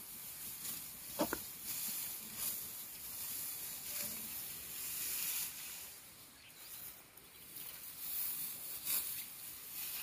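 Dry rice stalks rustling and swishing as a hand sickle slices through bunches of ripe rice, in repeated cuts with a few sharp snaps.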